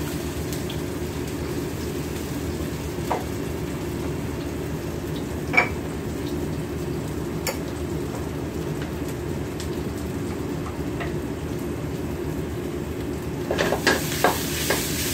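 Onion and whole spice seeds (fennel, cumin, fenugreek) frying in oil in a pan on a gas burner, a steady sizzle over a low rush. There are a few single clicks, and near the end a brief clatter as the pan is handled.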